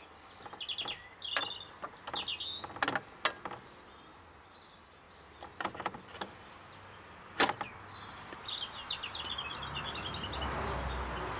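Clicks and knocks of the Garrard 3000 turntable's metal platter being lowered onto its centre spindle and drive gear and seated, about a dozen in all, the loudest about seven seconds in. A bird chirps in the background near the start and again about eight seconds in, and a low rushing noise swells near the end.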